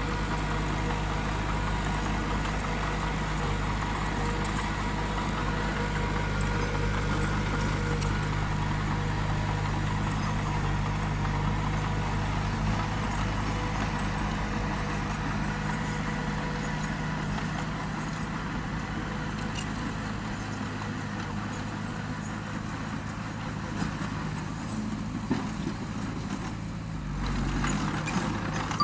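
Heavy diesel engine of a bulldozer running steadily, with a few short clanks, its lowest rumble easing off about two-thirds of the way through.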